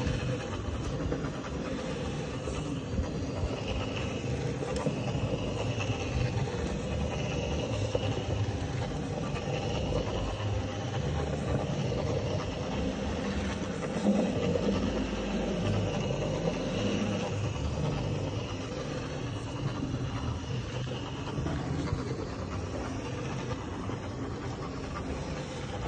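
Single-disc rotary floor machine running steadily, its brush scrubbing a shampoo-foamed rug, with a brief louder surge about halfway through.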